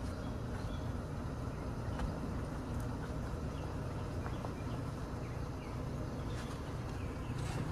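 Vehicle engine running steadily at low speed, a low hum with a few faint clicks over it.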